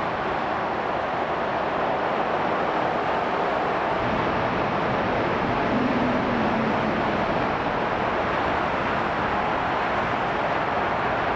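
Boeing 757-200 freighter's jet engine running steadily during a ground engine run-up, an even, unbroken roar.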